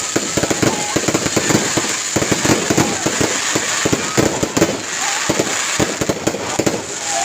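Dense, unbroken barrage of firecrackers and fireworks going off, many sharp bangs and pops a second overlapping into a continuous crackle.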